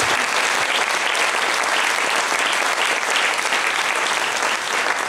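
Applause from a theatre audience and the actors on stage: many hands clapping steadily throughout.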